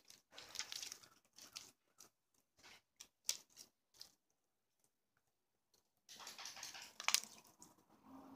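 Sticky peanut butter slime being squeezed and pulled apart by hand, giving soft tearing and crackling noises in irregular bursts as it peels off the fingers, with a longer stretch of it near the end.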